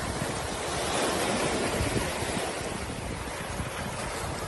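Steady rushing noise of wind on the microphone and sea surf, with no distinct tones or knocks.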